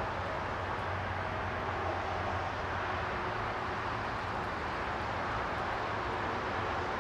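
Steady roar of nearby highway traffic, a continuous rush of tyre and engine noise with no breaks; loud and close enough to feel right on top of you.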